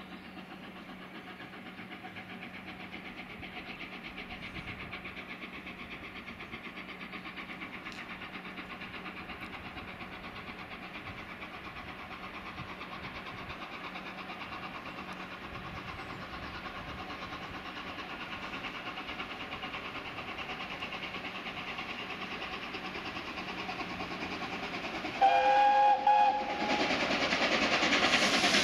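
Peppercorn A1 steam locomotive 60163 Tornado approaching with a train, a steady rumble slowly growing louder. About 25 seconds in it sounds a short, loud multi-note steam whistle, and the noise then rises sharply as the engine draws close.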